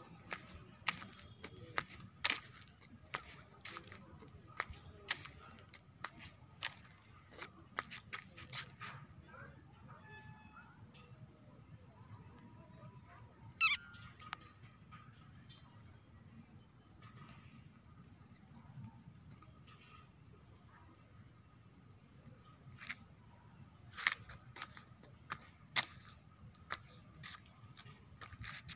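Night insect chorus of crickets trilling steadily and high-pitched, with scattered sharp clicks and taps throughout and one louder brief sharp sound about 14 seconds in.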